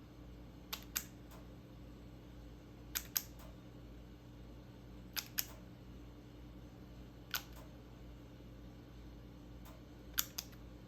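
Crisp clicking pops from glittery slime being pressed and poked, mostly in quick pairs about every two seconds, over a steady low hum.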